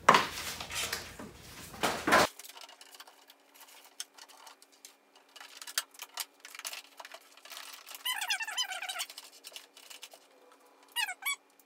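A cable being handled and fed down through a router table: loud rustling for the first two seconds, then faint clicks and scrapes, with runs of short high squeaks about eight seconds in and again near the end.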